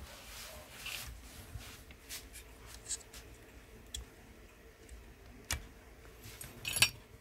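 Light clicks and scrapes of an air rifle's metal trigger-housing frame and receiver being fitted together by hand, with one sharp click and then a short clatter near the end.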